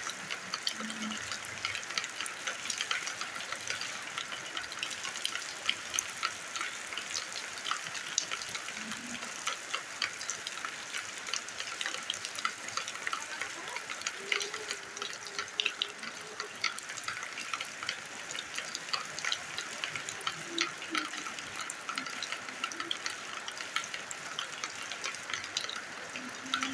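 Rain falling steadily, a dense patter of many small drops hitting the ground.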